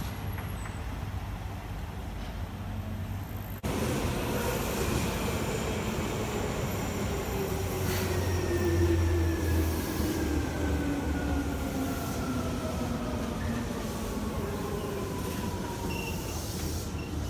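Seibu 2000-series electric train running: at first a quieter steady rumble, then after a sudden jump in sound a few seconds in, the train close by, its traction motors whining steadily lower in pitch as it slows along the platform.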